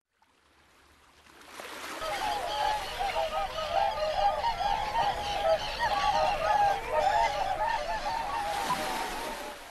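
A flock of geese honking, many calls overlapping; it fades in over the first two seconds and fades out near the end.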